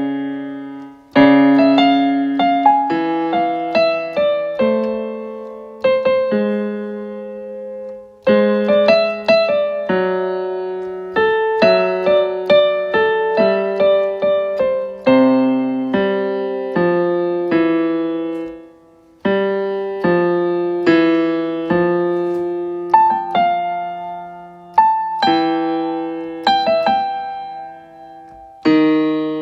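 Electronic keyboard with a piano voice, played slowly: chords in the left hand under a simple melody, the notes struck and left to die away, with short pauses between phrases.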